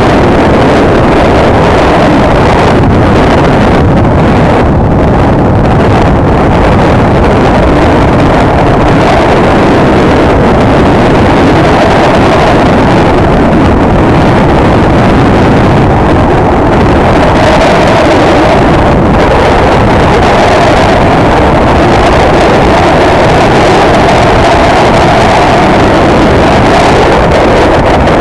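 Honda Tornado 250's single-cylinder four-stroke engine running steadily while the motorcycle rides along, with wind noise on the helmet-mounted microphone. The engine note shifts slightly in the second half.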